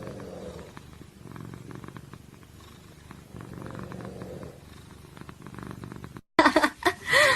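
A cat purring steadily, swelling and easing roughly every couple of seconds with its breathing. Near the end it cuts off abruptly and louder sounds with gliding pitch take over.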